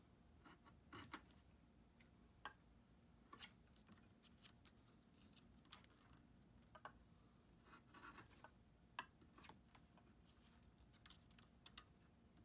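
Bench chisel paring the end of a thin kumiko wood strip: a string of short, faint scraping strokes at an uneven pace.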